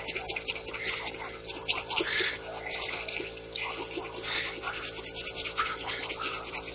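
Sandpaper rubbed by hand over hardened Bondo body filler in quick back-and-forth strokes, a few strokes a second, sanding off a spot of spilled filler.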